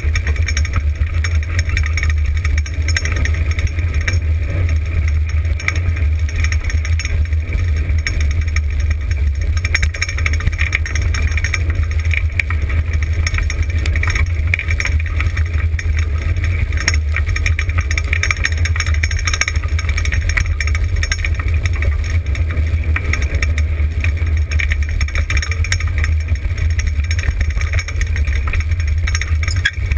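Dryland dog rig rolling fast over a dirt and gravel trail, pulled by a team of huskies: a steady low rumble with rattling that never lets up.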